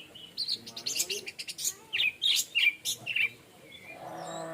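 Orange-headed thrush singing: a rapid, varied run of sharp high notes and swooping whistled phrases lasting about three seconds, then stopping.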